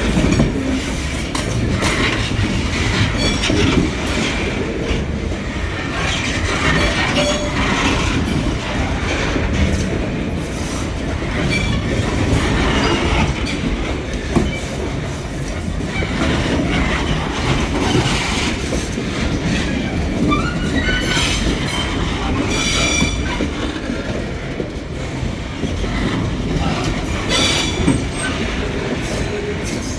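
Metre-gauge freight train wagons rolling past, wheels clacking over rail joints, with brief high squeals from the wheels now and then.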